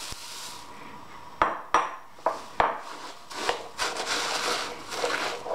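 Dry Rice Krispies cereal poured into a ceramic bowl with a faint rustling hiss, then a metal spoon stirring it into sticky marshmallow mixture, with several sharp clinks of the spoon against the bowl and a rustle of cereal.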